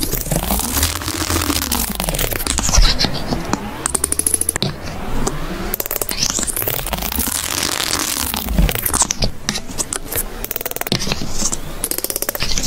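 Metal palette knife mixing thick paint in a plastic palette well: wet squelching and scraping in repeated sweeping strokes.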